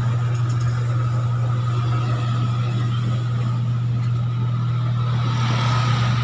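Washing machine motor running after its wiring repair, giving a steady low hum that drops away at the very end. The burnt wiring, with one wire on the wrong line, had been taken for a failed motor.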